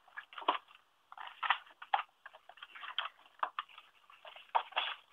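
Paper and cardstock being handled and shifted at a paper trimmer: irregular rustles, taps and clicks.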